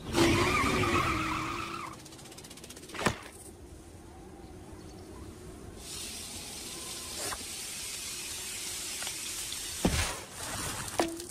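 Cartoon sound effects: a truck pulling away with a pitched squeal for about two seconds, then a single sharp hit. From about six seconds a steady hiss runs on, broken by a few light knocks.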